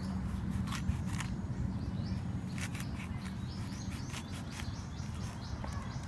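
Knife cutting through the thick pith of a pomelo on a wooden board: irregular short, crisp cuts. Birds chirp faintly over a steady low background rumble.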